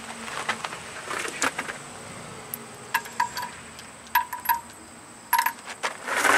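Loose steel lug nuts clinking against each other and against metal, a scatter of light metallic clinks that ring briefly. Near the end there is a louder scuffing noise.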